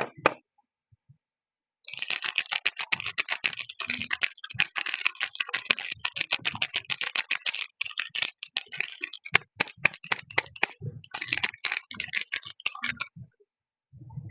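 Soap packaging being unwrapped by hand: rapid, dense crinkling and crackling of the wrapper. It starts about two seconds in, breaks off briefly a few times, and stops shortly before the end.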